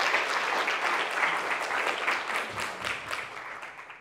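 Audience applauding, many hands clapping together, the clapping fading away near the end.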